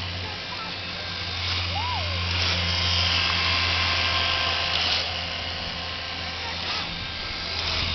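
Twin battery-powered toy outboard motors buzzing steadily as a small toy boat runs. A short whistled chirp rises and falls about two seconds in.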